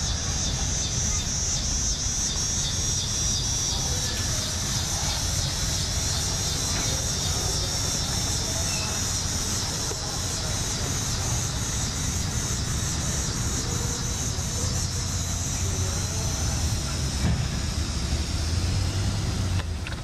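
Cub Cadet wide-frame garden tractor's engine, on a crawler bulldozer conversion, running steadily with a low rumble. A steady high chirring of insects sits over it.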